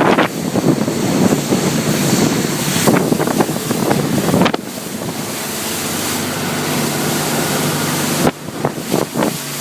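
Motorboat engine running through big ocean swells, with heavy wind buffeting the microphone and water rushing and splashing past the hull. For a few seconds in the middle the gusts ease and the engine's steady hum comes through more plainly.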